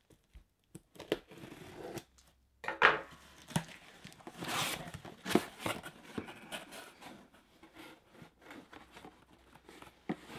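Cardboard shipping box being opened: packing tape slit and torn, the flaps folded back, and the contents rustled and shifted, in scattered scrapes, rips and knocks.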